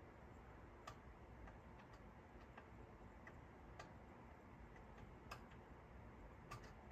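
Near silence with a few faint, irregular clicks, four of them clearer than the rest: a metal screwdriver being worked into the trimmer capacitors of a Sony TC-K777ESII cassette deck.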